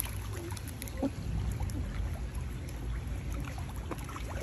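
Swimming pool water moving gently, with faint scattered drips and small splashes over a steady low rumble.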